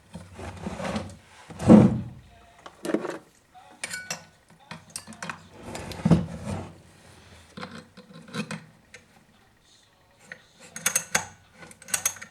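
Small metal tools and parts clinking, rattling and scraping as they are handled, in irregular knocks with a quick run of sharp clicks near the end.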